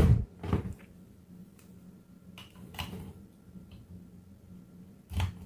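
Scattered plastic clicks and knocks as a power strip is handled and a USB charging cable is pushed into a phone charger plugged into it. The strongest knocks come at the start and near the end, over a faint steady low hum.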